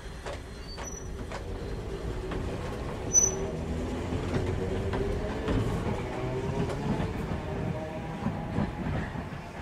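Hakone Tozan Railway electric mountain train pulling away, its traction motors whining with a pitch that rises as it gathers speed, echoing between the tunnel mouths on either side, with a brief sharp high squeak about three seconds in.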